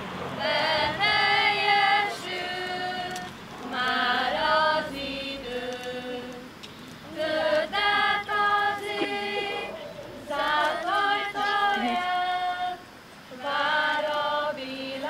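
A schoolchildren's choir singing an Advent song in phrases of held notes, with short breaks between the phrases.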